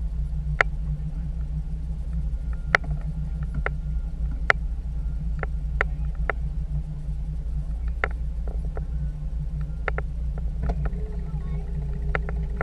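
Small outboard kicker motor on a fishing boat running steadily at trolling speed, a low rumble, with sharp clicks and knocks at irregular intervals about every second or two.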